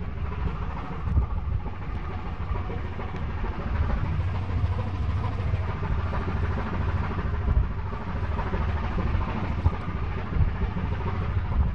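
Steady low rumble of a ship's engine running, with a hiss of wind and sea noise over it.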